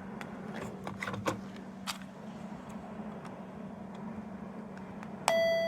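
A few light plastic clicks from a small capsule toy being handled and pressed, then near the end a sudden electronic doorbell chime from the toy's speaker: the first, ringing note of a "ping-pong" door chime.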